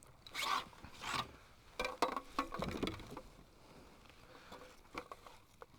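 Irregular pattering, scraping and clicking as a freshly landed largemouth bass is handled in a kayak, with a busier cluster of knocks and rustles about two seconds in.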